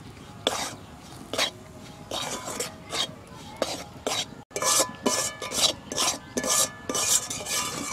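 A spatula scraping and stirring dry toast-biscuit crumbs and spice masala around a metal kadai, in repeated short strokes. The strokes come about once a second at first, and after a short break about halfway they come quicker, about two a second.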